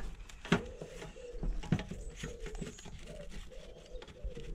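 Clicks and rustles of a roll of masking tape being pushed onto a hand masker's tape holder, with a faint low wavering tone in the background.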